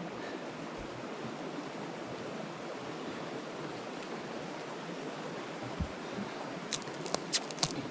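Steady background hiss while a deer carcass is handled by hand, with a dull knock about six seconds in and a quick run of sharp clicks near the end as its hind leg is worked.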